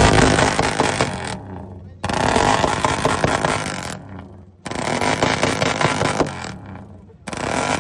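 Suzuki Raider 150 Fi motorcycle with a loud aftermarket exhaust, revved hard four times. Each rev lasts one to two seconds and falls away with a rapid crackling.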